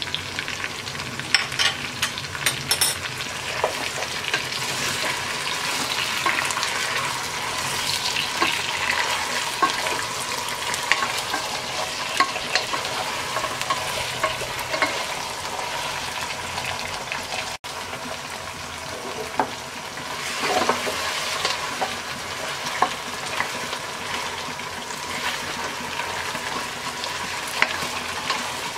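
Chicken pieces and chopped onion sizzling as they fry in oil in a pot, stirred now and then, with scattered clicks and scrapes of the stirring.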